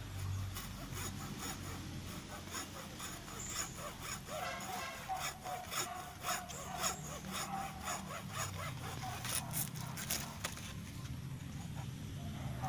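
Hacksaw cutting through a rubber plant stem with steady back-and-forth strokes, severing an air-layered (marcotted) branch from the parent plant; the strokes stop about ten seconds in.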